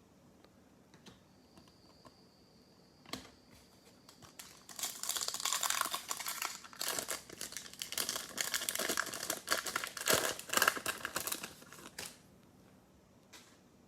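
Crinkling and tearing of a plastic trading-card pack wrapper being torn open and crumpled by hand, for about seven seconds starting about five seconds in. A single click comes a little before it.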